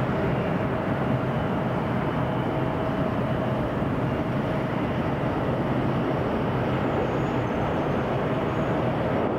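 Jet airliner engines running, a steady noise with a faint steady tone in it and no change in level.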